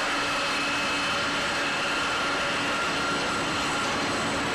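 Jet airliner engines running, a steady rushing noise with a constant high whine.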